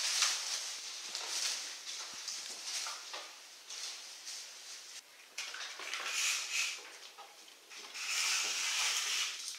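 Thin plastic bin bag crinkling and rustling in bursts as a litter of Czechoslovakian wolfdog puppies tug and chew at it.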